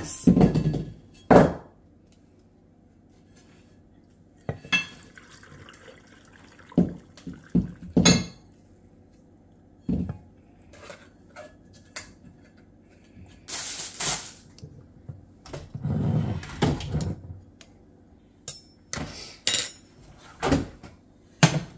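Hot vinegar pickling brine poured from a saucepan into a glass mason jar of boiled eggs, with a trickle of liquid and scattered clinks and knocks of the pan and utensils against the jar and counter.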